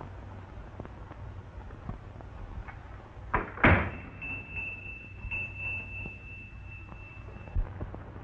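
A door knocks shut with a sharp double thump a little after three seconds in. A thin, high, steady tone follows for about three seconds, and there is one more knock near the end, all over a steady low hum.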